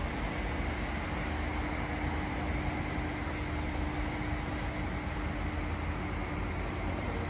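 Steady low mechanical rumble with a constant hum running through it.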